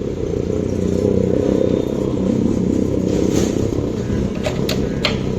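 Steady low rumble of a running vehicle engine or road traffic, with a brief hiss near the middle and a few sharp metallic clicks in the last second.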